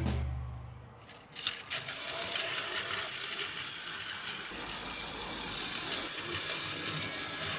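Battery-powered Plarail toy train running on plastic track: its small motor and gears whir steadily, with a few sharp clicks about a second and a half in.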